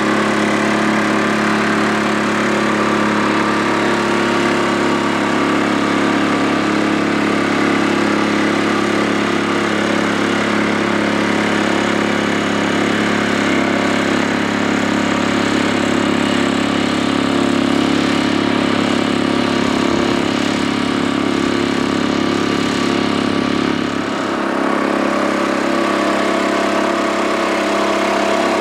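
Holder Cultitrac A12's air-cooled single-cylinder two-stroke Sachs diesel running steadily while the tractor pulls a plough through the field. Near the end the engine sound changes abruptly, with its deepest tones dropping away.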